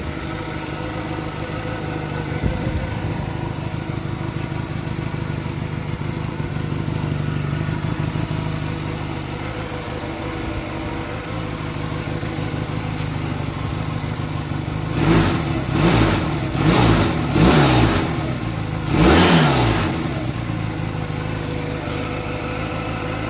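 The 250T's engine idling steadily, then revved in five quick blips of the throttle between about 15 and 20 seconds in, before settling back to idle.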